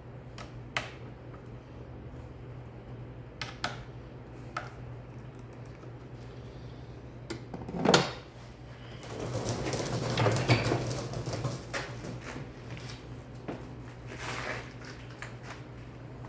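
Scattered clicks and knocks of hand work on a Husqvarna 592 XP chainsaw being reassembled, with one louder knock about eight seconds in followed by a few seconds of rasping handling noise. A low steady hum lies underneath, and the engine is not running.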